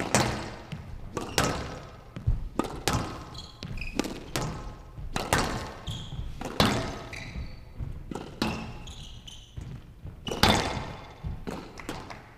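Squash rally on a glass court: the ball is struck by racket and hits the walls, making sharp cracks about once a second, irregularly spaced and echoing in a large hall. Short high squeaks of court shoes on the floor come between the shots.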